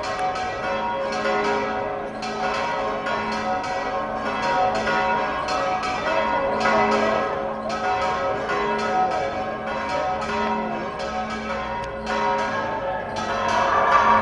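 Church bells ringing a rapid festive peal: quick repeated strikes, about three or four a second, over many overlapping ringing tones.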